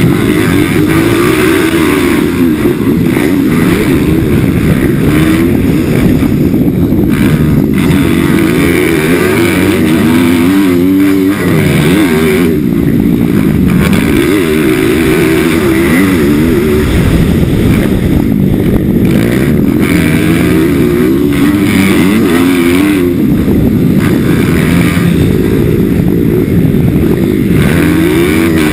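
Pit bike's single-cylinder four-stroke engine revving hard, its pitch rising and dropping again and again as the rider works the throttle and gears while racing, heard close up from a camera on the bike.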